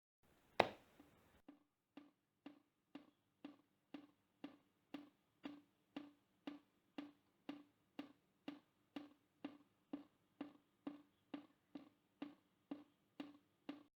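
One sharp hit with a short noisy tail, then a steady run of short hollow knocks, about two a second.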